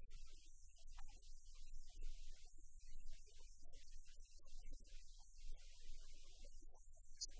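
Faint low steady hum, with scattered faint sounds above it.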